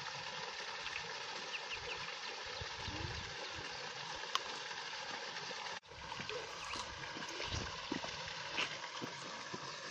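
Steady trickle and splash of a small waterfall running into a rock pool, with low buffets of wind on the microphone. The sound breaks off for a moment about six seconds in.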